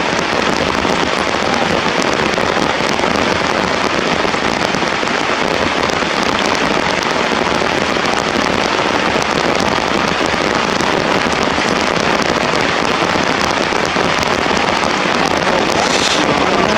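Steady heavy rain falling, a dense, even hiss of drops with fine crackle. A brief high sound cuts in near the end.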